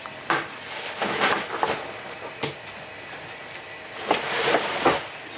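A fish knife knocking on a wooden chopping block and trevally flesh slapping on it: a few sharp knocks in the first half. A longer wet slapping and swishing near the end as a long fillet is swung and thrown down.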